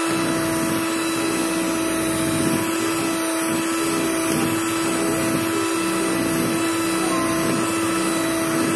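Electric hand mixer running at a steady speed, its beaters whisking batter, with an even motor hum.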